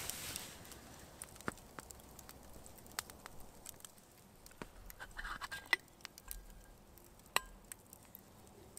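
Scattered light clicks and taps, with a few small metallic clinks that ring briefly about five to six seconds in.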